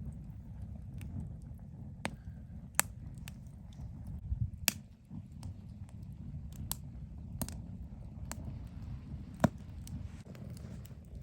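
Wood fire burning in a drum can, crackling with sharp irregular pops over a steady low rumble.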